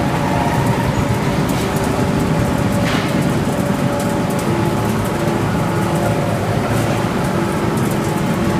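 Industrial machinery of an organic fertilizer production line running steadily: a continuous loud rumble with a few faint steady hums.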